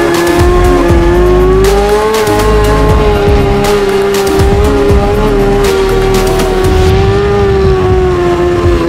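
Snowmobile engine running at high revs under load as it tows a couch on skis uphill: a steady high-pitched drone that rises slightly about two seconds in and then holds.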